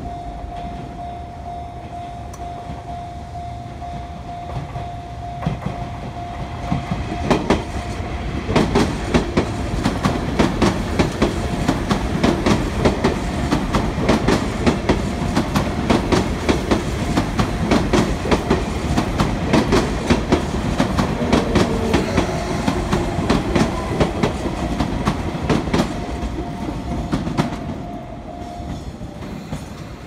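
Sotetsu 8000-series electric train passing close by, its wheels clacking over the rail joints in a fast, even rhythm over a rumble, from about eight seconds in until near the end. A steady level-crossing alarm tone sounds before the train arrives and again as it clears.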